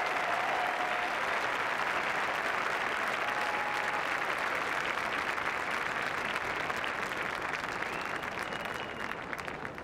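Large arena crowd applauding, the sound slowly thinning out and breaking into scattered separate claps near the end.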